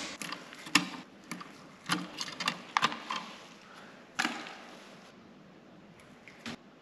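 Sharp clicks and snaps of copper electrical wires being handled and snipped with wire cutters. A louder clatter about four seconds in as wire scraps go into a rubber trash bin.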